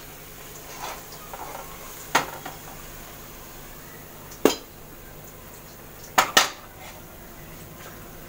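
Cookware and utensils knocking and clinking as cooked paneer mixture is scraped out of a pan onto a steel plate. There is a sharp knock about two seconds in, another midway, and a quick pair just past six seconds.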